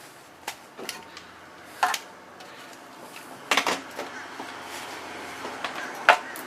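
Scattered metallic clinks and knocks, about five of them spread over several seconds, from tools and metal motorcycle parts being handled while a rear fender is fitted.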